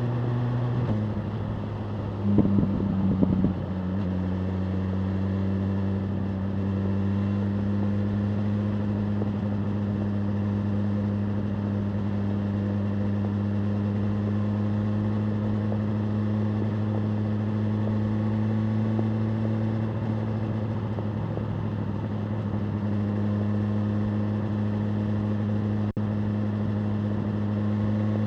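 BMW M1000R Competition's inline-four engine running at a steady, fairly low engine speed, its note dropping slightly about a second in and then holding even. A short rough burst of noise about two to three seconds in, and a single click near the end.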